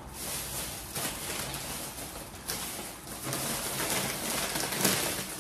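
Plastic shopping bag rustling and crinkling as a hand rummages inside it and pulls out a snack bag.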